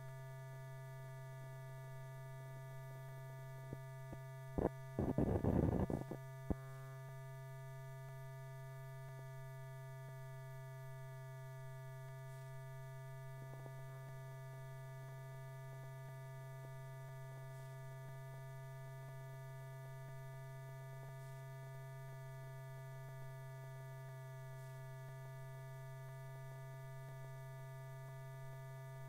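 Steady electrical hum with several fainter steady tones above it, the bare soundtrack under blank film leader. A short burst of crackle and a few sharp clicks about five seconds in.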